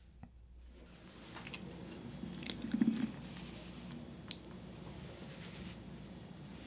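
Wooden chopsticks handling a slice of soy-marinated raw salmon: soft wet, sticky sounds as the slice is lifted from the plate and laid on a bowl of rice. There are a few light chopstick clicks, a sharp one a little after four seconds, and a louder low muffled sound about three seconds in.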